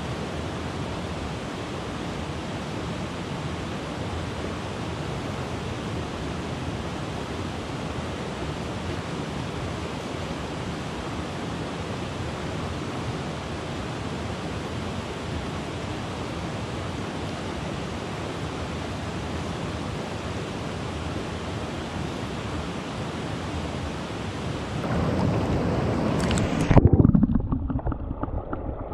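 Steady rush of a clear mountain torrent flowing over boulders and stones. About two seconds before the end it swells louder, then turns dull and muffled as the microphone goes underwater.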